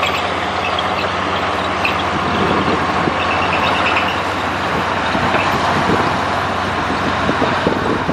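Heavy diesel earthmoving machinery running steadily under load, with a deep, even engine note and a constant clatter of tracks and soil.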